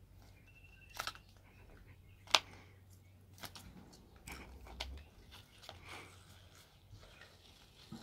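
Scattered light taps, clicks and scuffs of a slingshot and its rubber band and pouch moving and knocking on a concrete floor as a kitten paws at it, with one sharp click about two seconds in.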